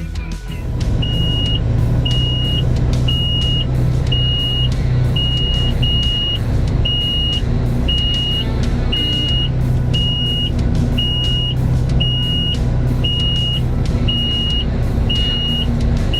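Heavy earthmoving machine's diesel engine running steadily under a back-up alarm that beeps about once a second.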